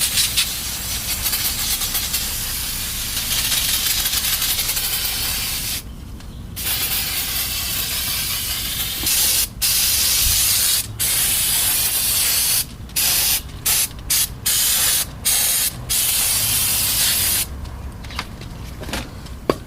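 Aerosol brake cleaner sprayed onto the front brakes to wet down the brake dust. It hisses in long continuous sprays for the first several seconds, with one short break, then in a quick string of short bursts that stop a couple of seconds before the end.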